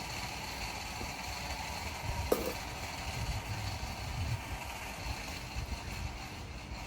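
Steady outdoor background hiss with uneven low rumbling, and one short sharp click about two seconds in.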